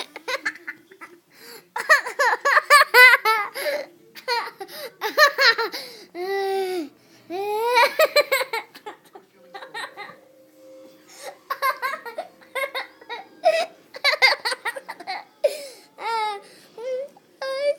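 A baby laughing hard in repeated bouts of giggles, each bout a string of quick pulsing laughs, with short breaks between and a quieter spell about halfway through.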